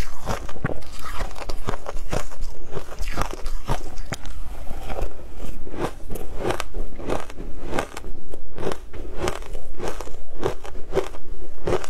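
Crushed ice dusted with matcha powder being bitten and chewed, a steady run of crisp crunches at about two to three a second.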